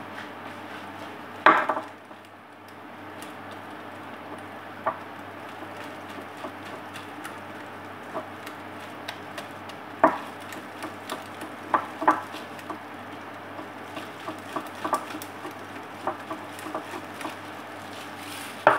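Kitchen utensils knocking and clinking against a bowl during batter preparation. The clinks are scattered, with a louder knock about a second and a half in and more around ten and twelve seconds in, over a steady low hum.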